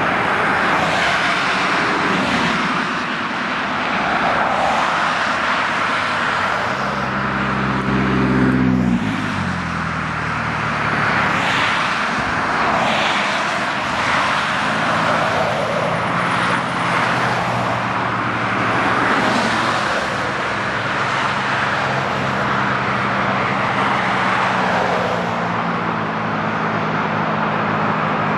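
Highway traffic passing close by: steady tyre and road noise, with one vehicle's engine dropping in pitch as it goes past about eight to nine seconds in. A steady low engine hum sits under the traffic in the second half.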